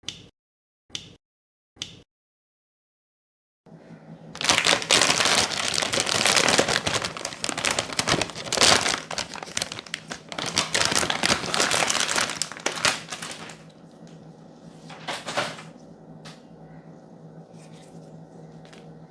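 Plastic packaging crinkling loudly as it is handled, for about ten seconds, then quieter handling with scattered clicks and one more short rustle. Before it come three sharp clicks about a second apart and a short stretch of dead silence.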